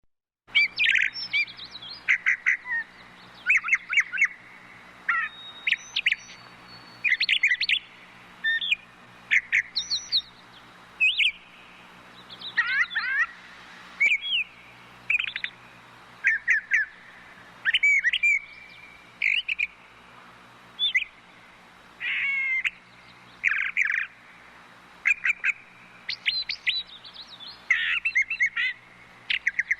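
Brown thrush singing: clusters of quick, sweeping notes, each cluster lasting about a second and repeated every second or two. A faint steady low hum runs underneath.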